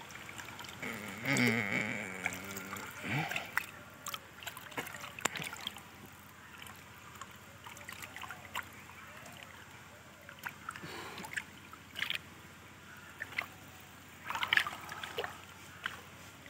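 Pond water splashing and sloshing as people wade chest-deep, with many small, scattered splashes and drips. A brief voice calls out about a second in.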